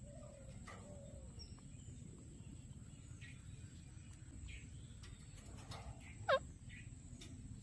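Birds calling faintly over a low background rumble: a few soft short calls, then about six seconds in a single brief call that sweeps sharply upward in pitch, the loudest sound.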